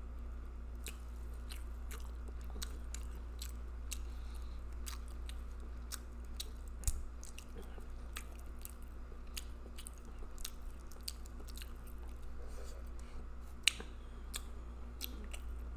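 A person chewing and lip-smacking on seafood boil close to the microphone: frequent short, wet mouth clicks, with two louder smacks about seven and fourteen seconds in, over a steady low hum.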